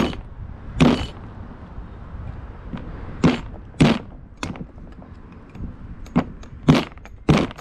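About seven sharp mallet blows, unevenly spaced, on a tool held against the piston of a VW MK3 brake caliper. The piston is seized in its bore and does not break free.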